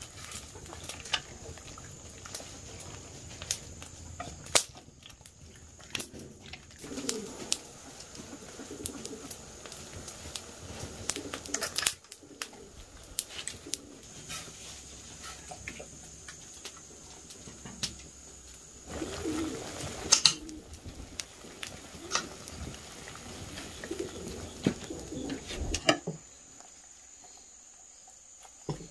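Birds cooing at intervals, with irregular sharp knocks and clatter throughout.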